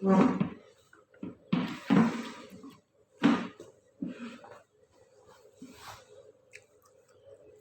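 Close-up eating sounds of noodles in black bean sauce: a handful of short, noisy mouthfuls, the loudest near the start, about two seconds in and just after three seconds, with softer mouth sounds between.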